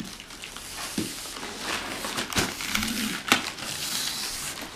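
Knife cutting and scraping through the tape and cardboard of a Christmas tree box, with crinkling and a few sharp knocks.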